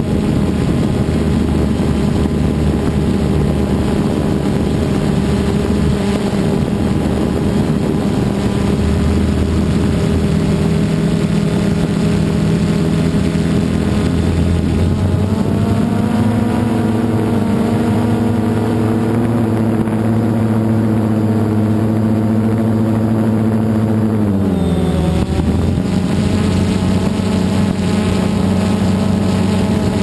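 DJI Phantom 2 quadcopter's electric motors and propellers whining steadily while it hovers, heard loud and close from the drone's own camera. The pitch steps up about halfway through, then drops sharply and recovers about five seconds before the end as the motors change speed.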